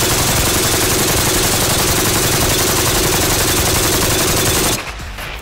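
RPK light machine gun (7.62×39 mm) firing one long continuous full-auto burst at about ten shots a second, stopping suddenly near the end. The gun is several hundred rounds into a sustained-fire test, its barrel smoking.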